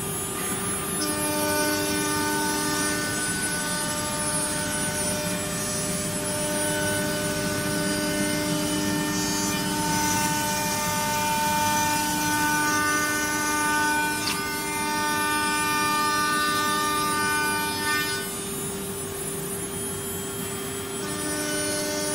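CNC router running: a steady spindle whine, with further motor tones and a high hiss that switch on about a second in and drop out for a few seconds near the end as the machine moves through its work.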